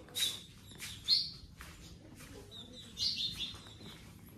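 Small birds chirping in short bright bursts: near the start, about a second in, and again about three seconds in.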